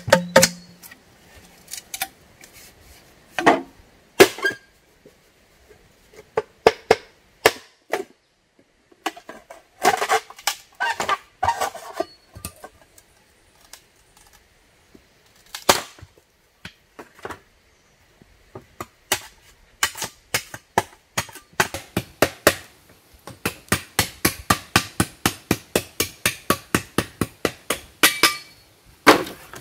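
Bamboo being worked by hand: scattered hollow knocks of bamboo poles, then, from a little past the middle, a fast, even run of sharp chopping strikes, several a second, as a shovel blade hacks at split bamboo.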